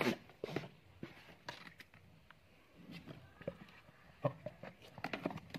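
Faint, scattered taps and scuffs as goats shift about close by, hooves on a tiled floor.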